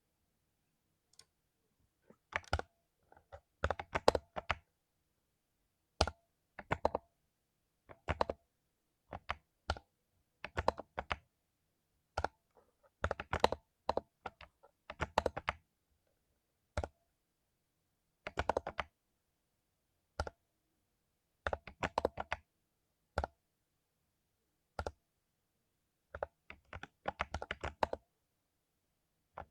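Mechanical keyboard with lubed Cherry MX Silver linear switches being typed on in short bursts of several quick keystrokes, with pauses of about a second between bursts.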